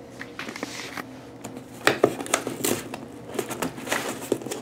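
Scissors snipping and scraping along the edge of a cardboard box, with clicks and rustles from handling the box; the sharpest click comes about two seconds in.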